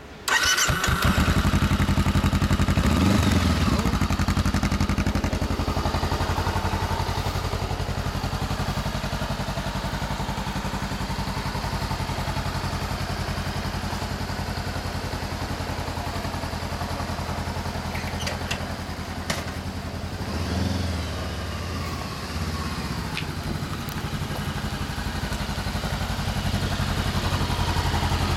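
2014 Honda CBR400R's parallel-twin engine running through an Arrow slip-on exhaust, idling steadily with a short throttle blip about three seconds in and another about twenty seconds in.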